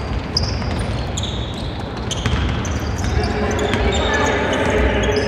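Basketball game sounds on a hardwood court: sneakers squeaking in short high chirps and the ball bouncing, over a steady hall rumble.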